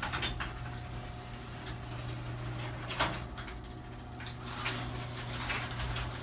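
LiftMaster 1/3 hp chain-drive garage door opener running as it closes the door: a steady motor hum with chain rattle and a few clunks, the loudest about three seconds in.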